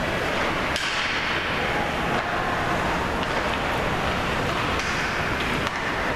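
Ice hockey play on a rink: a steady rushing noise with several sharp clacks of sticks and puck, the loudest a little under a second in.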